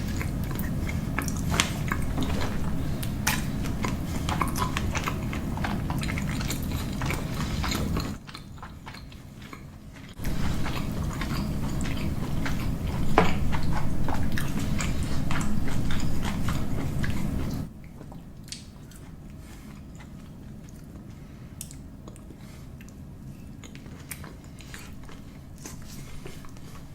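Close-miked mukbang eating: chewing and biting with many small clicks and crunches of food in the mouth. The low background hum drops away about eight seconds in, returns about two seconds later, and drops away again near eighteen seconds, leaving quieter chewing.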